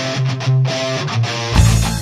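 Background rock music led by a strummed guitar; a heavy low bass comes in about one and a half seconds in.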